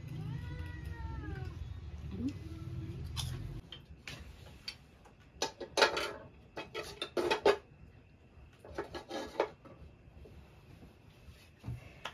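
A cat meows once, a drawn-out call that rises then falls in pitch, over a low hum that stops a few seconds in. Then come two bursts of sharp clattering knocks, the loudest sounds: a longer one about halfway through and a shorter one a few seconds later.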